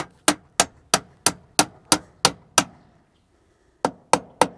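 Claw hammer driving a nail through aluminum fascia into the wooden subfascia board: a run of nine quick, even blows about three a second, a pause of about a second, then three more blows.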